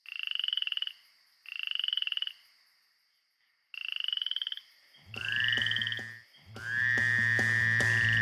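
A frog croaking in three short pulsed trills, each under a second. Music begins about five seconds in.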